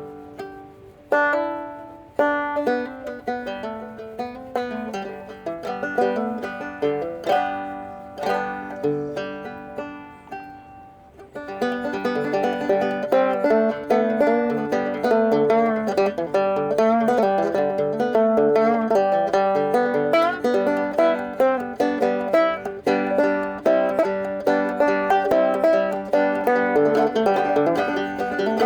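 Banjo played solo: slow, single plucked notes ringing out and fading, then, about eleven seconds in, a steady, louder run of fast picking.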